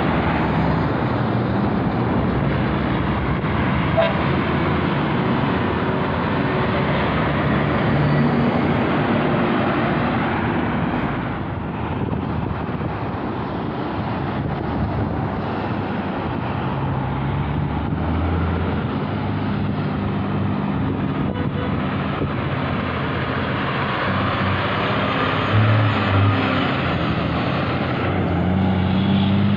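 Passing heavy road traffic: diesel dump trucks and a Peterbilt semi hauling a loaded flatbed pull by with their engines running over tyre noise, the engine note stepping up and down as they go. A semi passes close near the end.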